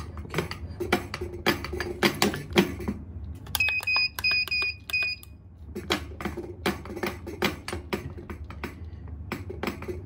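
Steel armature plate of an electromagnetic door lock clacking and knocking as it is handled against the released magnet. Midway through, the access-control keypad's buzzer gives four short, evenly spaced high beeps.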